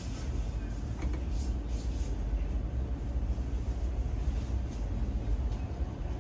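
Moscow Central Circle electric commuter train running between stations: a steady low rumble inside the carriage.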